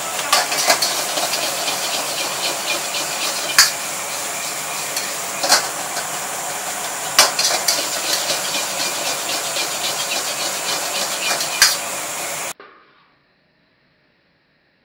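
Egg fried rice sizzling in a wok over a high-flame gas burner, with a steady hiss, while a metal ladle scrapes and knocks sharply against the wok about six times. The sound cuts off abruptly near the end.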